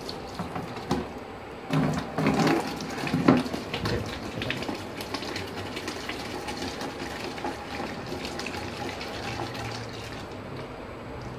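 Water gushing steadily from the outlet hose of a 12-volt solar DC suction pump and pouring into a plastic bucket. A few louder bumps come about two to three seconds in.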